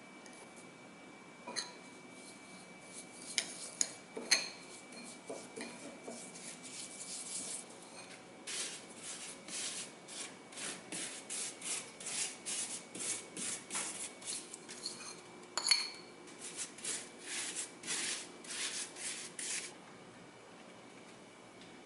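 A metal spoon clinks a few times against a ceramic bowl of za'atar and olive oil. Then comes a long run of quick rubbing, scraping strokes, about two a second, as the za'atar paste is worked out and spread, with one sharper clink near the end.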